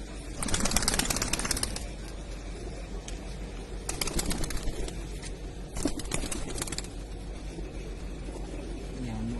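Birds flapping their wings in three short bursts, with a low coo near the end.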